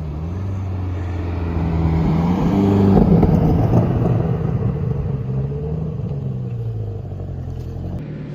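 2020 Chevrolet C8 Corvette's 6.2-litre LT2 V8 running after a full-throttle run. The engine note rises briefly about three seconds in, then falls steadily as the revs drop.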